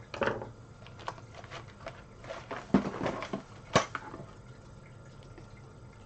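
Hard plastic clicks and rattling of SDRAM memory sticks being handled at the motherboard's RAM slots, including the slot retaining clips, with two sharper clicks about three and four seconds in.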